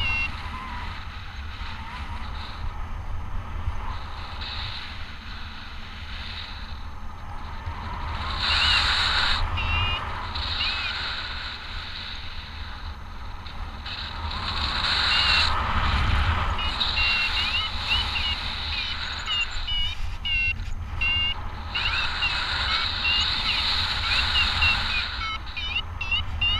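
Wind rushing over the microphone of a camera carried in paraglider flight, a steady low rumble. Over it come repeated bursts of high, wavering, chirping tones that stop and start several times.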